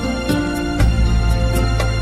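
Background music: sustained chords over a low bass line, with a light percussion tick about four times a second.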